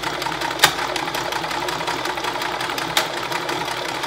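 Singer electric sewing machine running steadily, stitching a wide zigzag. Two sharp clicks come through, about half a second in and again near three seconds.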